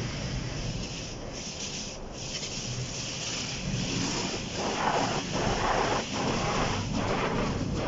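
Automatic car wash heard from inside the car's cabin: water spray hissing and streaming over the windshield and body. From about four and a half seconds in, louder swishing rubs come in uneven pulses as the wash brushes work on the car.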